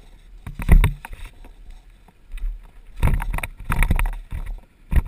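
Dirt bike moving over rocky ground and brush: several loud, irregular bursts of rumbling knocks and rustling over a faint low hum.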